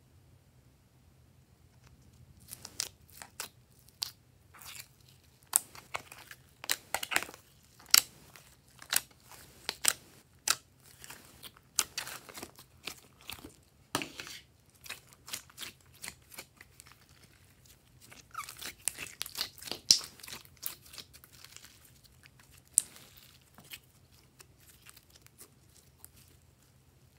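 Shiny pink glossy slime being squeezed, stretched and folded by hand, giving off irregular sticky pops and crackles. The pops start a couple of seconds in and thin out near the end.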